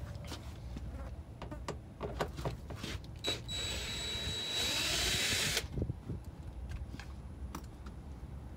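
Cordless drill/driver with a T20 Torx bit running for about two seconds with a steady high whine, backing out a door-panel fastener, and stopping suddenly. Before it comes a run of light clicks and knocks as the bit is fitted.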